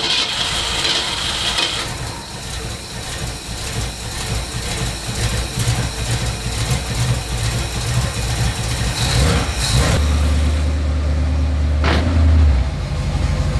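Ford 289 V8 running just after a cold start, idling while it warms up before carburetor adjustment. The low engine note grows steadier and stronger in the last few seconds.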